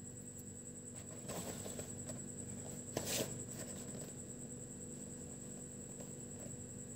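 Cardboard takeaway box being handled to open it: a rustle of paperboard about a second in, then a short sharp scrape of cardboard about three seconds in, over a faint steady high whine.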